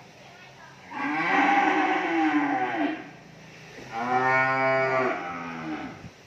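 Cattle mooing: two long moos, the first starting about a second in and the second about four seconds in.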